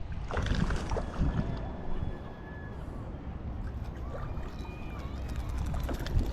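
Wind rumbling on the microphone, with faint water sloshing.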